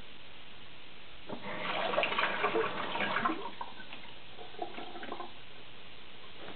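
Wet sounds at a Japanese natural sharpening stone: water and slurry being worked against the stone in a dense, uneven burst of about two seconds, then a fainter stretch about a second later.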